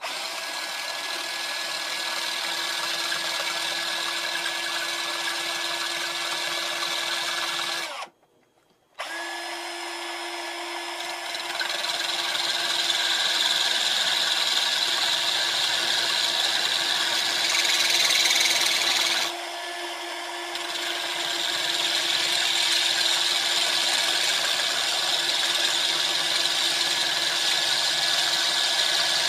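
Battery-powered Black & Decker drill running with its bit grinding into the muffler's end cap to drill out the exhaust baffle: a steady motor whine over a grinding rasp. It stops for about a second eight seconds in, then restarts, and dips briefly again about twenty seconds in.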